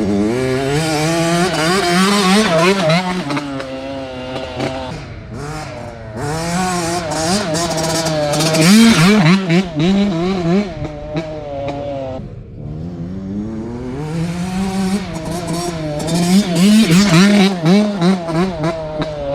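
Dirt bike engine revving hard while riding, its pitch climbing and falling in three long pulls with the throttle easing off briefly between them.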